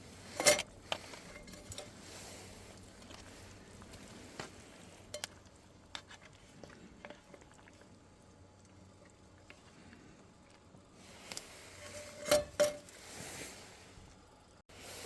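Metal camp cookware and utensils knocking and clinking during cooking: a sharp ringing clink about half a second in, scattered light taps, then two more ringing clinks shortly before the end.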